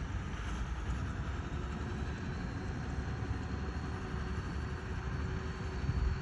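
Heavy construction machine engine running steadily, a low rumble with a faint steady tone joining about two seconds in.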